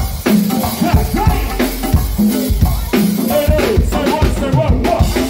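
Live go-go band music: fast hand-played congas over a drum kit and the rest of the band, in a dense, driving percussion groove.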